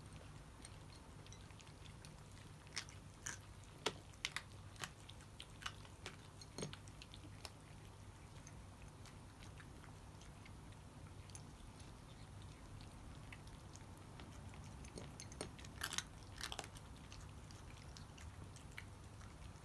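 Cats crunching dry kibble: faint, irregular crunches that come in two clusters, a few seconds in and again near the end, over a low steady hum.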